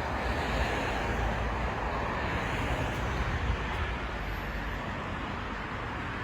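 Road traffic noise, a vehicle passing and slowly fading away toward the end.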